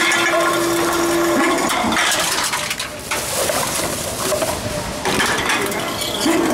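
Tomra reverse vending machine taking in containers: bottles and cans clattering and rattling through the machine. A steady tone holds for about the first second and a half.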